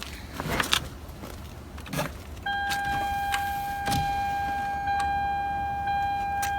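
A few clicks and clunks of handling. About two and a half seconds in, a steady, high electronic warning tone comes on and holds: the car's electrical system sounding as power returns after the battery is reconnected.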